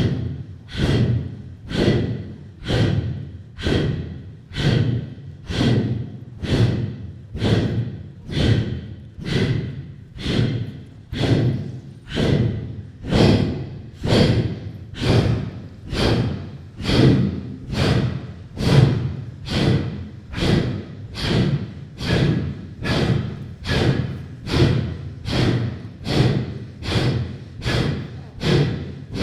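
Loud rhythmic breathing: one sharp breath about once a second in a steady, even pulse, each breath fading away before the next.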